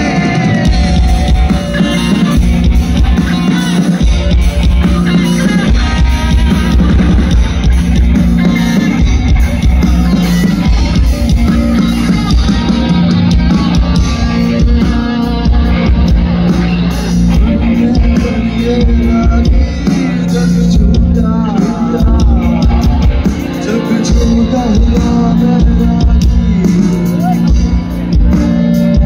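A live band with electric guitars and drums playing loudly through big outdoor PA speakers, with some singing.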